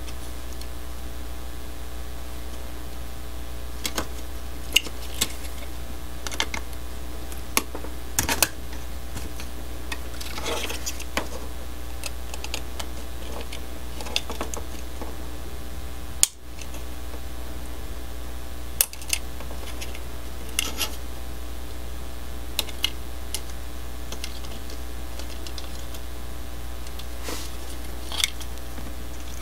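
Scattered small clicks and light scrapes of a hobby knife blade working a plastic handrail strip loose from a plastic N scale locomotive shell, heard over a steady low hum.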